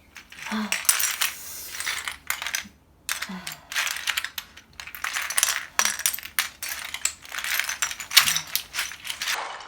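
Small hard plastic toys clicking and clattering as bare feet step on and shuffle through them: rapid scatters of sharp clicks and rattles in bunches, with a short lull about three seconds in.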